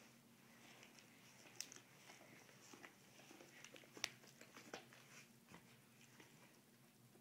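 Faint gnawing of dogs' teeth on a chew bone, a Golden Retriever puppy and a Rhodesian Ridgeback both mouthing it: scattered small clicks and scrapes, with a sharper click about four seconds in.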